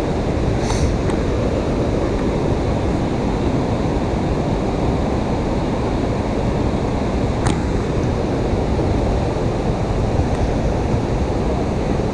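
Steady rushing of water pouring through a dam's open spillway gates and churning in the river below. A single faint click about seven and a half seconds in.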